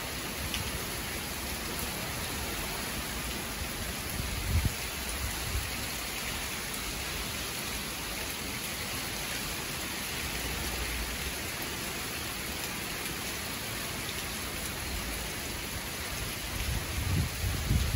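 Steady heavy tropical-storm rain pouring down on a lawn and patio, an even hiss throughout. A couple of brief low rumbles break in about four to five seconds in.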